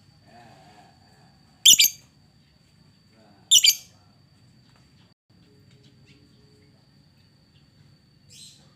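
Lovebird giving short, high-pitched chirps: a loud one about two seconds in, a quick double call about two seconds later, and a fainter one near the end.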